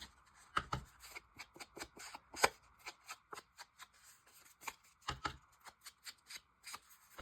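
Paper and cardstock being handled by hand: irregular short rustles, light taps and clicks, with one sharper snap about two and a half seconds in.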